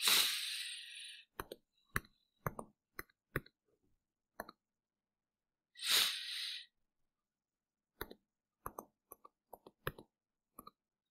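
Scattered series of light mouse clicks entering numbers on a computer calculator, in two groups: about half a dozen in the first few seconds and another run from about eight seconds in. Two short breathy exhales into the microphone, at the start and about six seconds in, are the loudest sounds.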